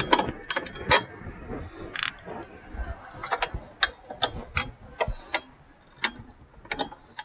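Socket ratchet wrench clicking in short runs as a bolt at the car battery is loosened, with a few knocks of metal being handled between the runs.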